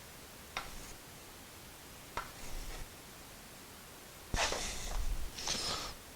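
Pencil scratching on plywood in short strokes while tracing outlines, each stroke starting with a light tick; the last two strokes are longer and louder.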